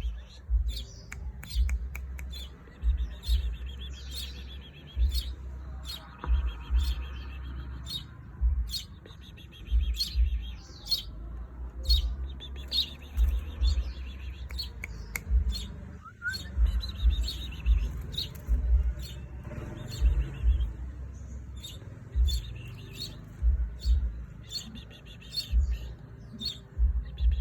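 22-day-old finch chicks chirping in short, sharp calls, over and over, with soft low thuds among the calls.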